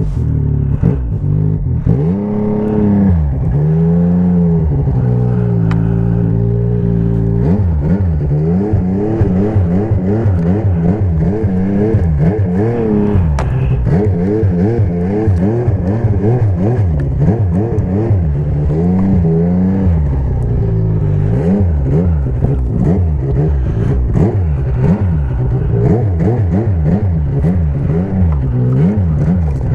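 Snowmobile engine running under a constantly worked throttle, its pitch rising and falling: a few slow swells at first, then quick revs up and down about once a second.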